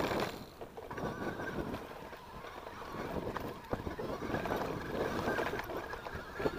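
Mountain bike rolling along a grassy dirt singletrack: tyre noise on the ground, with scattered clicks and rattles from the bike.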